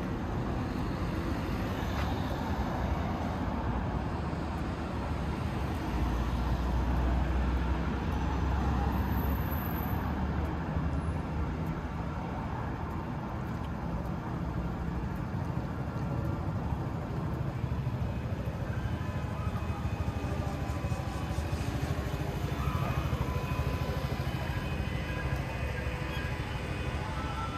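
Road traffic ambience: cars passing steadily, with a louder, deeper rumble of a vehicle going by close for a few seconds in the middle.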